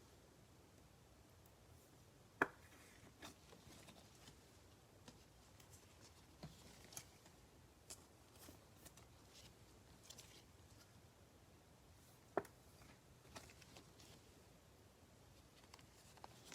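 Near silence with faint handling noise of trading cards: scattered light ticks and rustles, with two sharper taps, one about two and a half seconds in and one about twelve seconds in.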